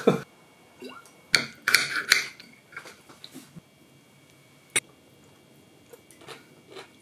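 Chopsticks and dishes clinking at a dinner table: scattered sharp clicks and knocks, the busiest cluster about one and a half to two seconds in and a single sharp click near five seconds.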